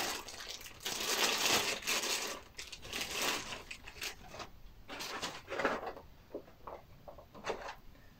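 Clear plastic bag crinkling and rustling as a pistol is pulled out of it, densest in the first few seconds, then a few shorter rustles and light handling knocks.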